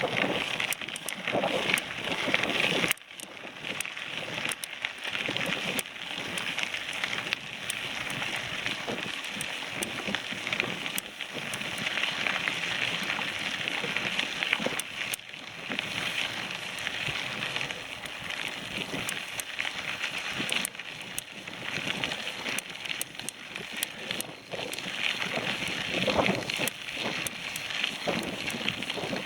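Bicycle ride over rough ground: a steady crunching rush of tyres with many scattered clicks and rattles, and wind buffeting the microphone.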